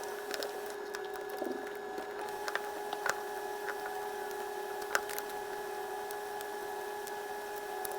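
Small, scattered clicks and ticks of screws and plastic parts being handled as a Nintendo Switch is taken apart, over a steady hum of several fixed tones.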